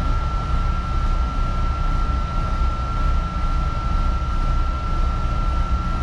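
Long Island Rail Road commuter train heard from inside a car while it moves along the line: a steady low rumble of wheels on track, with a steady high-pitched whine over it.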